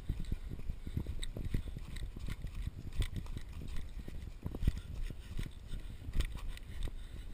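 Running footsteps on a dirt forest trail: a quick, uneven series of low thuds, picked up by a GoPro carried by the runner.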